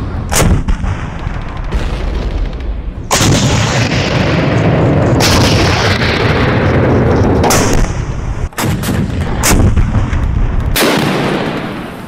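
German 88 mm Flak gun firing, with shells bursting: a series of heavy blasts a couple of seconds apart, each followed by a long rumbling decay, and a quick cluster of sharp cracks about two-thirds of the way through.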